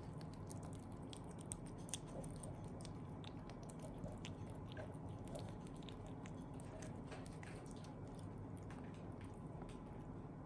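A pet chewing food, a steady run of small irregular crunches.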